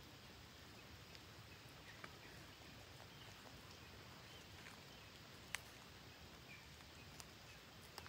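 Near silence: faint outdoor background with a few soft, sharp clicks, the loudest about halfway through, and some faint brief high chirps.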